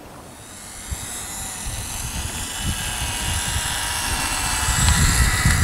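Radio-controlled model airplane's motor: a high whine made of several tones, getting steadily louder over a few seconds as the model comes closer, with a low uneven rumble underneath.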